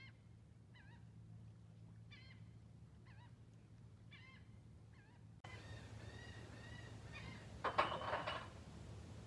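Birds calling: short chirping calls repeat about once a second, then a louder call comes near the end.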